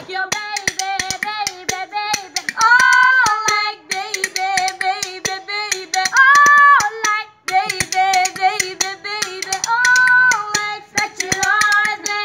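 Women singing a tune without instruments, holding long notes a few times, with hand claps keeping a steady beat.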